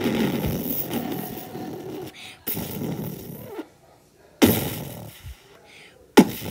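A person's voice making rough, rumbling mouth noises that imitate a truck engine, in about four bursts with short pauses between them.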